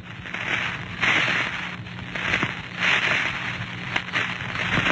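Rain sound effect: a steady hiss of rain that swells and eases every second or so, with a few crackles, over a low steady hum from the old recording.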